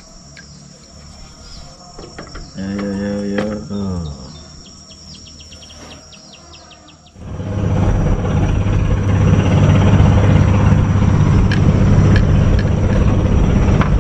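A thin steady insect drone, with a short falling whine a few seconds in; then, about seven seconds in, an engine starts up close by and runs loud and steady.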